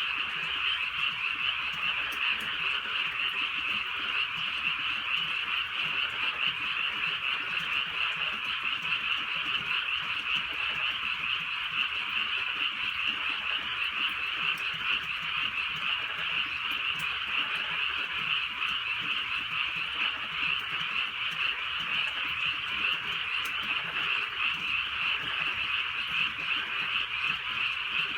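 A dense chorus of many frogs calling at once, merging into a continuous pulsing trill that holds steady throughout.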